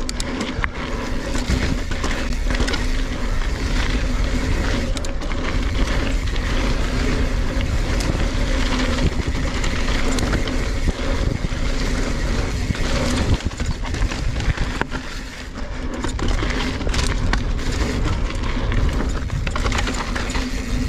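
NS Bikes Synonym mountain bike descending fast on rocky singletrack: tyres rumbling over dirt and rock, with frequent knocks and rattles from the bike and wind buffeting the camera microphone. It eases off briefly about three quarters of the way through.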